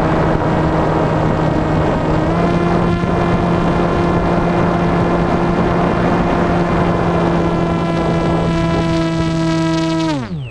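Motor and propeller of an RC flying wing running at a steady pitch with rushing air, recorded from on board. The pitch steps up slightly about two seconds in. Near the end it falls away quickly as the motor winds down to a stop.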